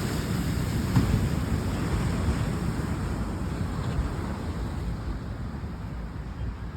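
Wind buffeting the phone's microphone over the steady wash of ocean surf, a constant low rumble with no separate events.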